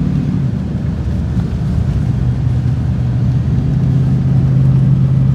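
Tow truck engine running while driving, a steady low drone that drops in pitch about half a second in and grows slightly louder toward the end.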